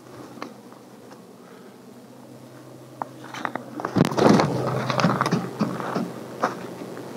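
Crunching and rustling that begins about three seconds in and is loudest around four seconds: footsteps in snow, together with a gyrfalcon flapping its wings on the fist.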